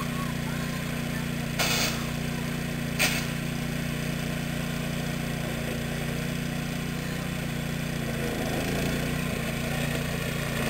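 Speedex garden tractor engine running steadily, with two short loud noises about one and a half and three seconds in. The engine note wavers briefly near the end.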